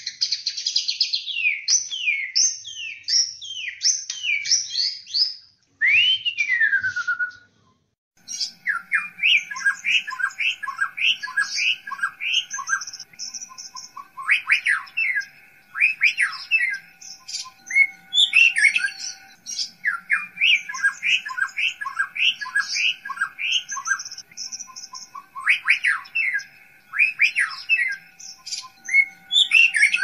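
White-rumped shama (murai batu) singing: fast runs of clear whistled notes that sweep down and up, in quick repeated phrases. The song breaks off briefly about seven seconds in, then resumes with a denser stretch of rapid phrases.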